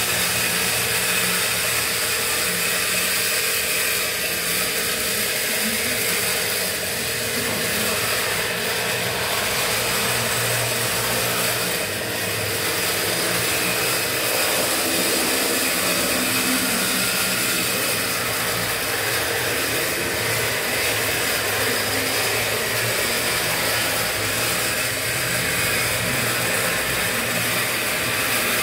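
A steady mechanical whirring hum over an even hiss, unchanging throughout.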